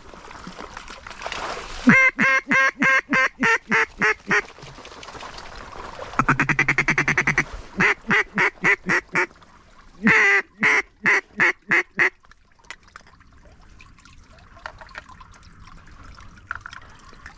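Mallard hen quacks blown on a duck call: three runs of seven or eight loud, evenly spaced quacks, with a fast rattling feed-call chatter between the first two runs.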